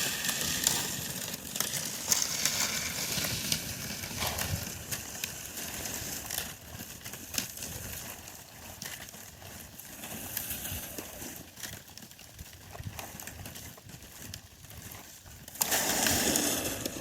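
Wind-driven lake ice sheet breaking up and shoving against the shore: dense, constant crackling and tinkling clicks of ice pieces grinding together, growing louder near the end.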